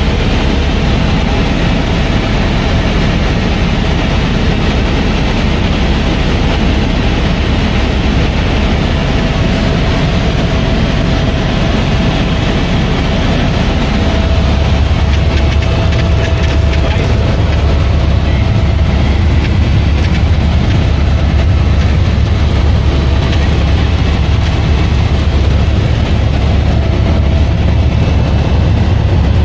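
Helicopter in flight, heard from inside the cabin: a loud steady engine and rotor drone with a thin high whine over it. The deep drone grows louder about halfway through.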